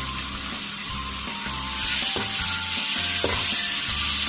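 Chopped onion and ginger-garlic paste sizzling in hot oil in a metal pan while a spatula stirs them. The onion is frying toward light golden. The sizzle grows louder about two seconds in.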